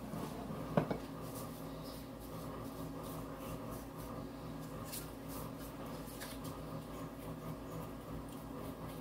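Small craft brush scraping and tapping inside an electric blade grinder's bowl, loosening dry tomato powder into a glass bowl: one sharp knock about a second in, then only faint light scratches and ticks.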